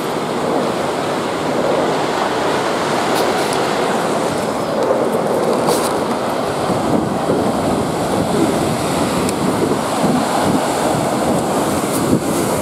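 Ocean surf breaking and washing steadily, with wind on the microphone.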